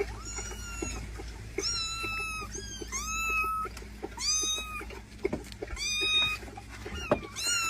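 A cat meowing repeatedly: about seven high, drawn-out meows, each under a second long, a second or so apart.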